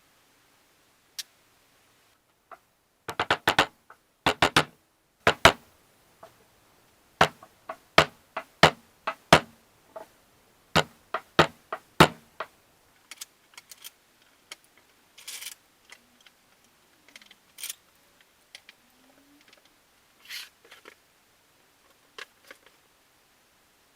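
A run of sharp knocks and taps: a quick cluster, then a steady series of loud strikes close to two a second, then fainter scattered clicks near the end.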